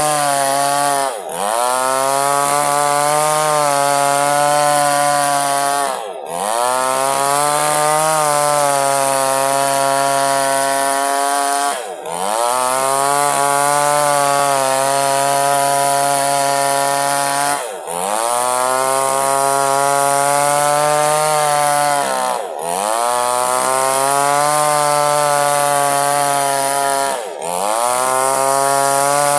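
Chainsaw running at high speed, cutting lengthwise through wood to split it in two. About every five seconds the engine speed drops sharply for a moment, then climbs back up.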